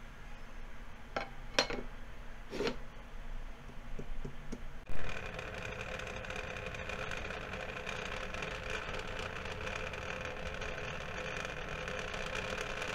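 Glass ramekins clinking a few times against the pan, then a steady hum as the lidded pot of water cooks on the stove.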